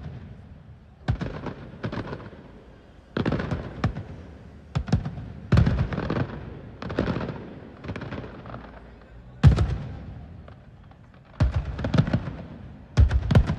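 Aerial fireworks bursting: a string of sharp bangs about every one to two seconds, each trailing off, the loudest a little past halfway and near the end.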